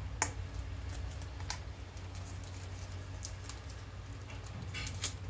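Small clicks and ticks of little plastic accessories being handled and set down on a glass tabletop: one sharp click about a quarter second in, another about a second later, and a quick cluster near the end, over a steady low hum.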